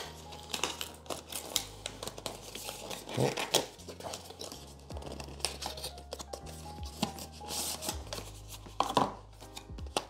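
Clicks, rustling and scraping from packaging and small plastic camera accessories being handled and fitted together, over background music with steady held bass notes. The loudest handling noises come about three seconds in and again near the end.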